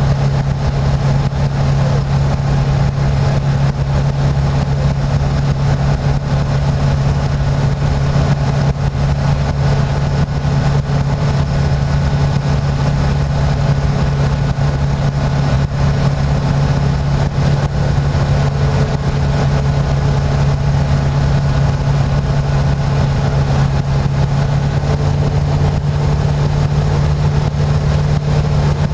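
Rider MD-3 microlight's piston engine and propeller running steadily in flight, heard from inside the cockpit as a loud, constant low hum over a noisy rush.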